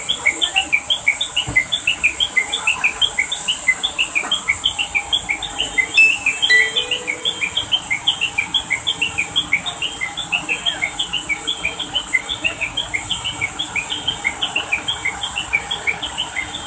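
Small birds chirping quickly and without a break, several short chirps a second at varying pitches, over a steady high hiss.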